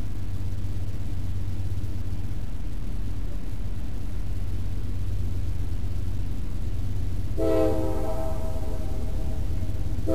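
Steady low rumble of an approaching CSX freight locomotive, then about seven and a half seconds in its air horn sounds one long blast for the grade crossing; a second blast starts right at the end.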